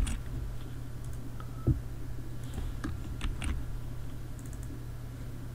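A few scattered computer keyboard keystrokes and mouse clicks, the loudest about a second and a half in, over a steady low hum.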